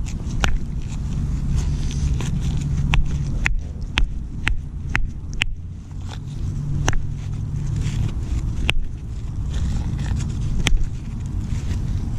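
A rock striking a metal object pulled up by magnet fishing again and again in an attempt to break it apart: sharp single knocks, with a quick run of about five half a second apart near the middle, over a steady low rumble.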